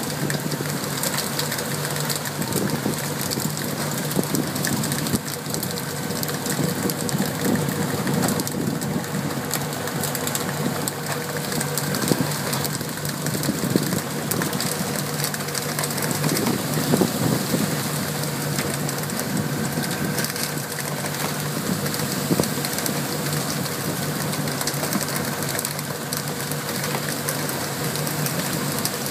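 Steady hiss of water spray pattering onto the sea surface from a pole-and-line tuna boat's sprinklers, with irregular splashes of fish at the surface, over the steady drone of the boat's engine.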